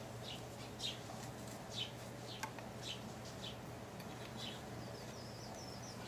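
Small birds chirping in short falling notes, with a quick twittering run near the end, over a steady low hum. One sharp metallic click about two and a half seconds in, a hex key on the footpad screws.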